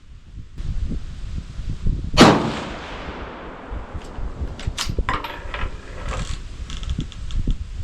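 A single rifle shot about two seconds in, with a long echo trailing off. A run of sharp clicks and rattles follows, over a steady low rumble of wind on the microphone.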